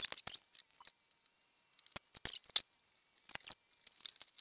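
Scattered sharp clicks and taps as small metal cable lugs and hand tools are picked up and set down on a truck bed liner, with the loudest click about two and a half seconds in.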